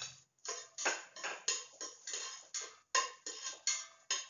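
Onion being sautéed in hot oil in a stainless steel pot, stirred with a utensil that scrapes against the pot: about a dozen quick scraping strokes, roughly three a second.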